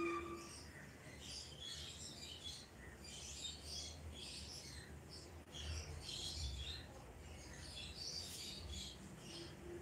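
Small birds chirping repeatedly in the background, short high calls scattered throughout, over a faint low rumble.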